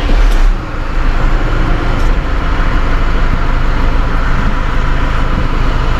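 New Holland TS110 tractor's diesel engine catching at once and starting, with a loud burst for about half a second, then running steadily.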